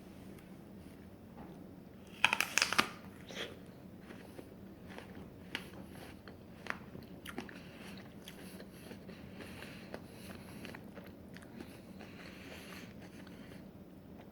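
A person bites into a crisp McIntosh apple, with a quick cluster of loud crunches about two seconds in, then chews it with many quieter crunches for the rest of the time.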